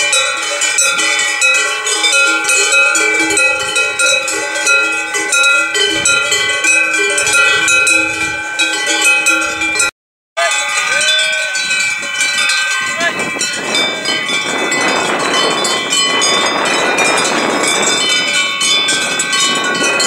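Many cowbells on a herd of cattle ringing together in an unbroken, overlapping jangle as the cows walk. The sound breaks off for a moment about halfway, and a steady rushing noise joins the bells in the last third.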